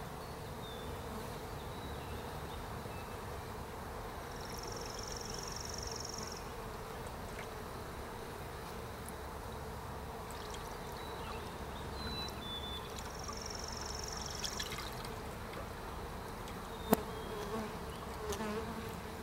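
Honey bees from a freshly installed package colony buzzing steadily around the open hive. A high, even trill sounds twice, about four seconds in and about thirteen seconds in.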